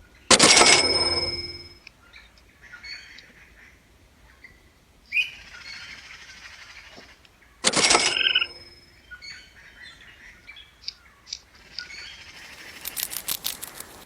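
A jay calling: two loud, harsh calls, one at the start and one about eight seconds in, with softer chirps between and a quick run of clicks near the end.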